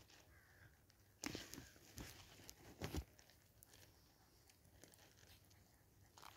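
Mostly near silence, with a few faint rustles and crunches in the first three seconds as puppies stir and mouth at each other in the grass.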